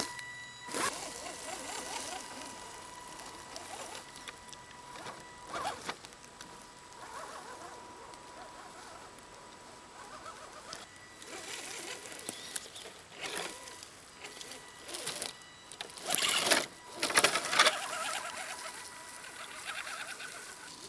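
Radio-controlled Axial SCX10 crawler creeping through forest undergrowth, its electric motor giving a thin steady whine, with short bursts of rustling through leaves and brush, the loudest a few seconds before the end.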